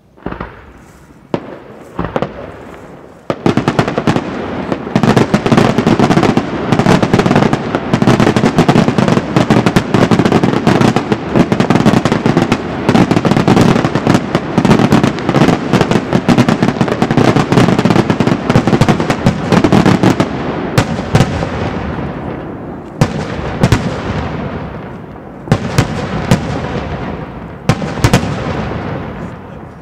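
Daytime fireworks display: a few single bangs, then from about three seconds in a dense rapid barrage of bangs and crackling that runs for some seventeen seconds. After that come separate loud bangs, each with a trailing crackle as it fades.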